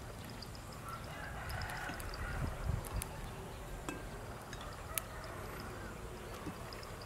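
Light scrapes and clicks of a metal blade cutting grilled squid on a ceramic plate, with a couple of sharp clicks about three and five seconds in, over a steady low rumble of wind on the microphone.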